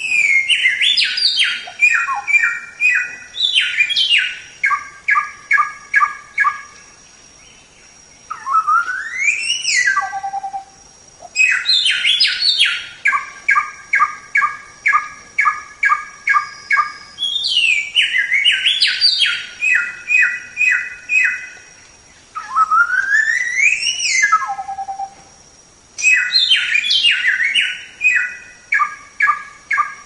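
Samyong (golden whistler) singing loudly in repeated phrases: quick descending notes that settle into evenly repeated notes about two a second, alternating twice with a single whistle that sweeps steeply upward and ends on a low note.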